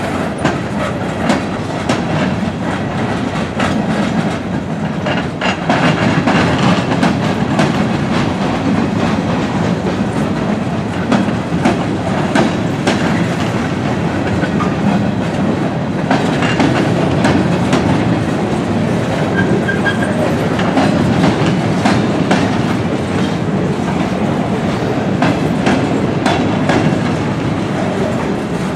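Gondola cars of a freight train rolling past: a steady rumble of steel wheels on rail, with a constant patter of clicks and clanks as the wheels cross rail joints.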